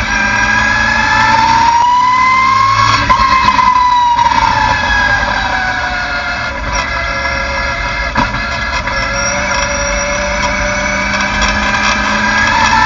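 A Ford Mustang race car's V8 engine heard from inside the cabin, pulling in fourth gear. The engine note climbs over the first few seconds, eases off and falls until about halfway, holds steady and low, then climbs again near the end. One sharp knock comes about eight seconds in.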